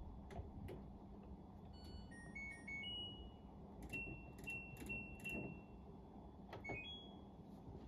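LG front-loading washing machine's control panel beeping as the wash program is set: a short run of beeps at changing pitch, then four beeps at one pitch, then a few rising beeps near the end, with faint clicks from the program knob.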